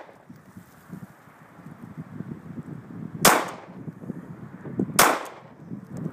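Two pistol shots from a Sig Sauer P226 9mm, a little under two seconds apart, the first about three seconds in.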